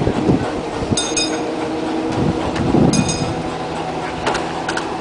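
Boat haul-out lift's engine running steadily, with short ringing metallic pings every second or two.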